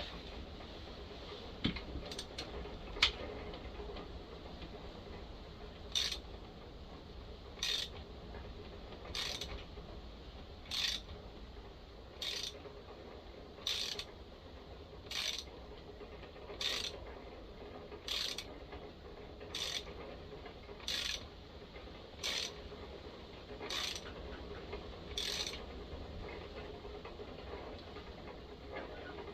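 Thread repair tool being turned by hand into a chainsaw cylinder's stripped spark plug hole, its cutter working into the metal. It gives a short click about every second and a half, some fourteen times, after a couple of sharper ticks near the start.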